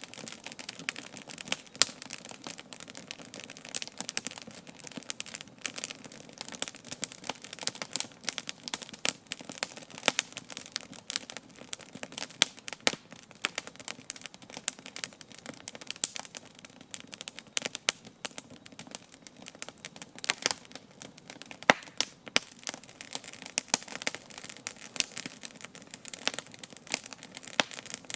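Campfire crackling, with dense irregular pops and a few sharper, louder snaps.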